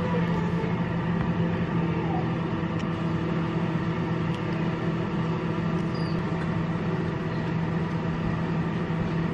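A steady low hum of a running machine, unchanging throughout.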